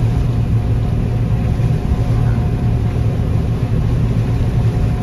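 Old combine harvester running steadily while harvesting soybeans: a deep, constant machine hum with a faint steady whine, heard from inside the cab.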